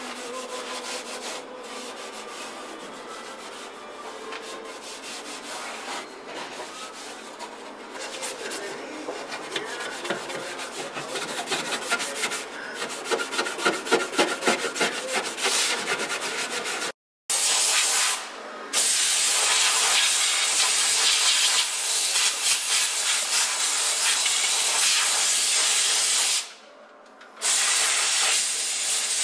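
Hand sanding of a car trunk's sheet-metal floor with an abrasive pad: quick rubbing strokes that speed up and grow louder toward the middle. After a short cut to silence, a spray gun hisses steadily as primer goes on, stopping briefly once near the end.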